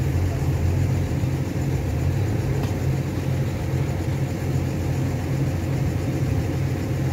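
Truck engine running steadily to power a truck-mounted hydraulic crane holding a load. There is a low, even rumble with a thin steady tone above it.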